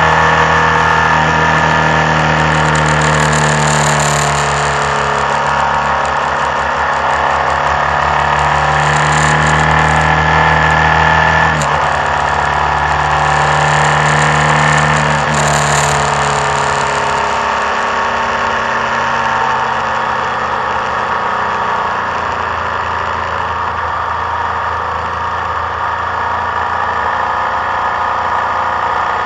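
Vehicle engine running on the move, its note shifting in pitch twice near the middle, over steady wind and road noise.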